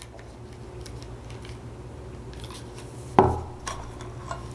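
A pull-tab can of chili being handled and opened: faint ticks, then a sharp click with a short knock about three seconds in and a smaller click just after.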